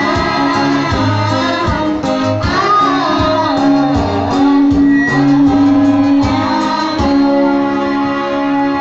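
Music with singing over a steady low bass line and a regular beat.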